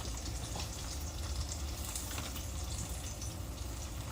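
Battered cheese corn dogs deep-frying in hot oil: a steady sizzle with scattered small crackles.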